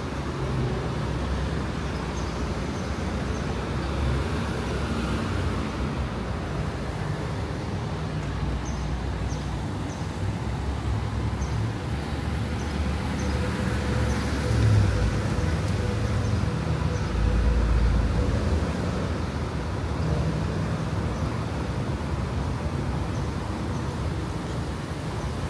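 City street traffic: cars driving past on a multi-lane road, a steady rumble of engines and tyres that swells louder twice, about fifteen and eighteen seconds in.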